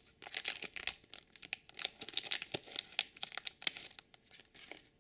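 Small toy blind bag being torn open and crinkled by hand, in a run of irregular crackles that stops shortly before the end.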